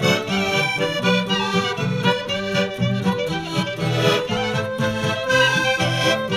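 Instrumental music: a lively tune with sustained melody notes over a steady, rhythmically repeating bass.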